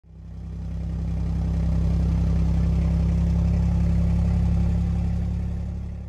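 A vehicle engine idling steadily, heard from inside the cab. It is a low, even hum that fades in at the start and fades away near the end.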